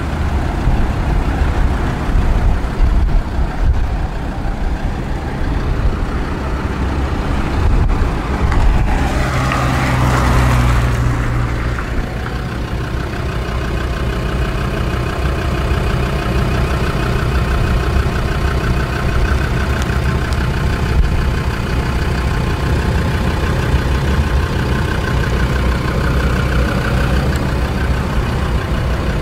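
Land Rover Discovery 2's 2.5-litre inline-five turbodiesel idling steadily, with a louder rushing swell for about two seconds near ten seconds in.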